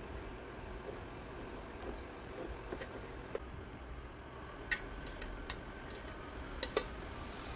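Metal ladle clinking several times against an enamel pot as foam is skimmed off soy milk, the sharpest knocks coming in the second half, over a steady low rumble.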